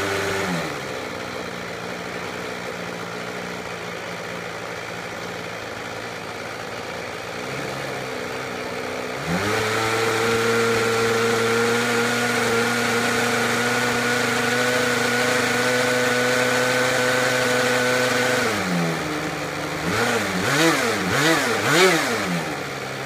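O.S. 46 FX-H two-stroke glow (nitro) engine of an X-Cell 40 RC helicopter, rotor head off, running on the ground after years of storage. It idles steadily, steps up to a higher steady speed about nine seconds in and holds it for about nine seconds, drops back, then is revved up and down several times in quick succession near the end before settling back to idle.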